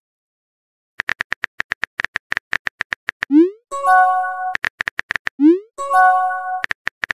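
Texting-app sound effects: after a silent first second, rapid keyboard-typing clicks, then a short rising 'bloop' and a brief chime chord as a message appears. This happens twice, and the typing clicks start again near the end.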